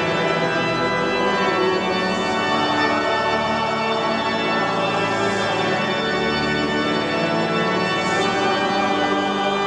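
Organ playing full chords, each held for a few seconds before shifting.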